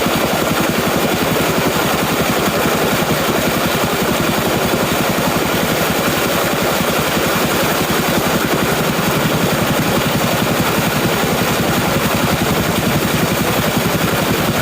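Single-cylinder 'Peter' diesel engine running a tube-well pump, a loud steady rapid knocking that does not change.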